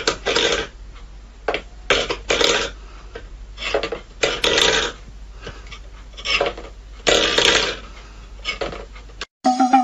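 Stainless steel food bowl pushed and scraped across a wooden floor by a cat's paw, in repeated short scrapes at uneven intervals.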